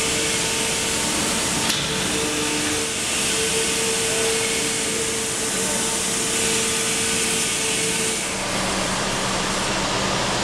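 Steady industrial background noise of a large factory hall: a loud, even hiss with a few held humming tones from running machinery, the clearest of which stops about eight seconds in.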